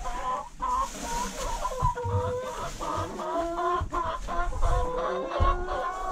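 A flock of hens clucking and calling together, several drawn-out voices overlapping, with a few low thumps underneath.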